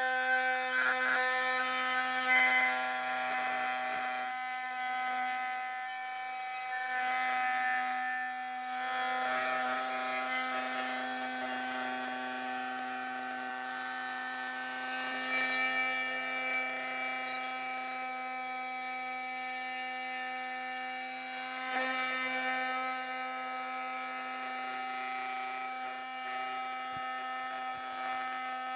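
Oscillating multi-tool running with a 90mm high-speed steel semi-circular blade cutting into soft wood: a steady motor buzz with a rasping cutting noise that swells and eases as the blade bites.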